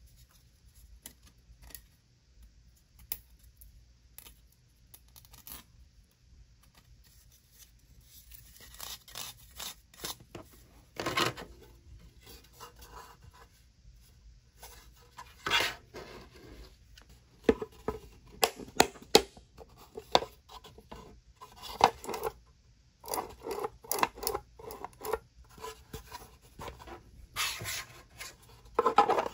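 3D-printed plastic crate panels handled and snapped together: plastic scraping and rubbing on plastic, with sharp clicks as the joints snap into place. The clicks are sparse at first and come thick and loud through the second half.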